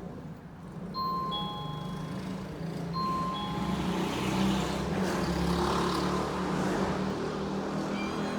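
Background music: a short two-note chime figure, a high tone falling to a lower one, sounds about a second in and again about two seconds later, over a steady low hum.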